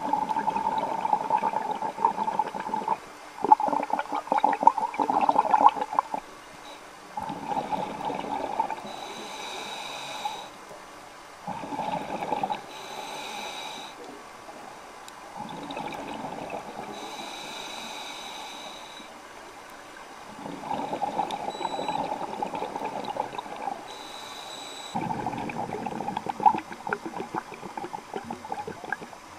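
Scuba diver breathing through a regulator underwater: bursts of bubbling exhaled air alternate with quieter hissing inhalations that carry a faint high whistle, about every five seconds.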